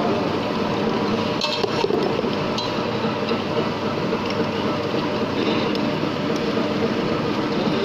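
Through-pass duplex grinding machine running steadily as it grinds both faces of metal washers, with washers clinking against each other and the steel feed a few times, the sharpest clinks about a second and a half in.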